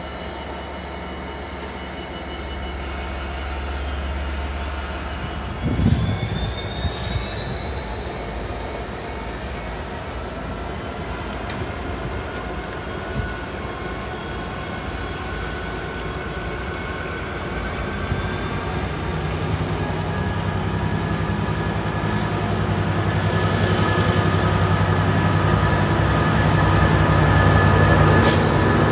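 Class 66 diesel-electric freight locomotive approaching on a freight train. Its two-stroke V12 diesel is running and grows steadily louder as it nears. A brief cluster of knocks comes about six seconds in.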